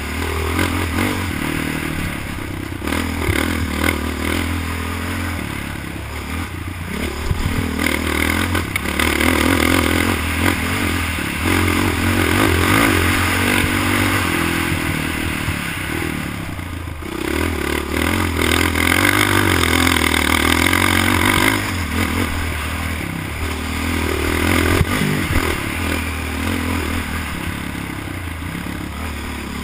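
ATV (quad) engine running hard on a camera mounted on the machine, swelling and easing as the throttle is worked, with a brief drop in engine sound a little past the middle. Knocks and rattles come through at times.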